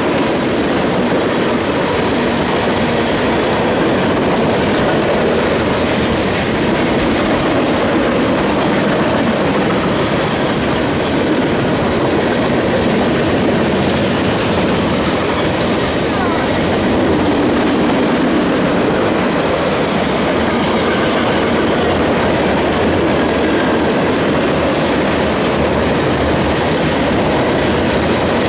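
Freight train cars rolling steadily past, steel wheels running on the rails with a constant rumble.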